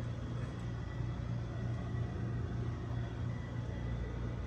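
Microwave oven running with a steady electrical hum.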